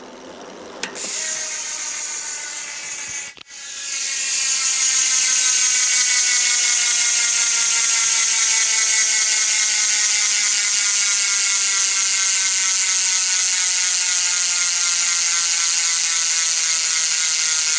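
Hope rear hub freewheeling: its ratchet pawls buzz loudly as the wheel spins freely. After a shorter spin and a brief break about three seconds in, a long spin follows whose pitch slowly falls as the wheel winds down.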